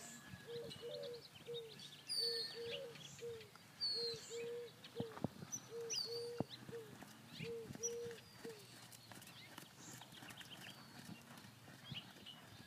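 Horse cantering under a rider on arena sand: a short, even tone repeats with each stride, about twice a second, and stops about two-thirds of the way through, with a couple of sharp knocks midway.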